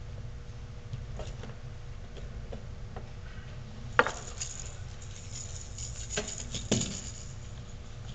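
Bullmastiff puppies moving about in a carpeted pen: a few sharp clicks and clinks, the loudest about four seconds in and another cluster between six and seven seconds, over a low steady background hum.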